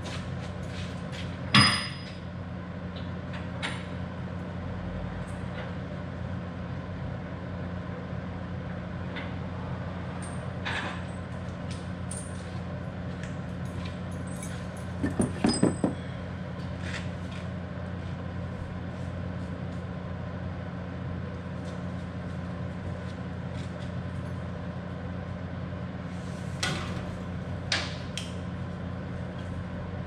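Metal clanks and knocks from steel tailgate latch hardware being handled and fitted on a dump truck: one loud clank about a second and a half in, a quick run of several knocks about halfway through, and two lighter knocks near the end. Under them the dump truck's engine idles steadily.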